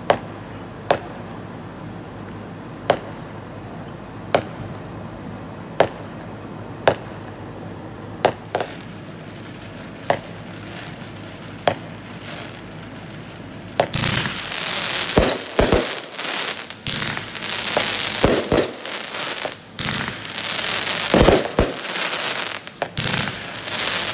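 Fireworks: a string of single sharp bangs from aerial shells, about one every second or so. About two-thirds of the way in, a loud, dense crackling of crackle-effect fireworks takes over, broken by a few deeper thumps.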